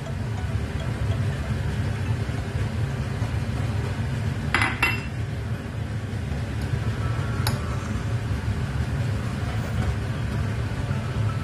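A metal spoon clinking against a ceramic rice bowl: two quick clinks about halfway through and one more a few seconds later, over a steady low rumble of background noise.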